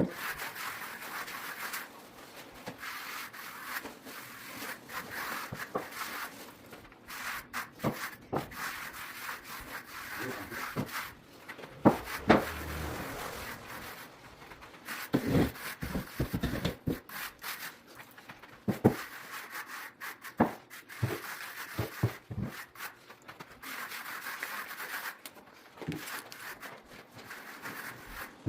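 Hand trowel scraping across freshly laid resin-bound pea gravel in repeated strokes, with scattered clicks and knocks of stones and tool.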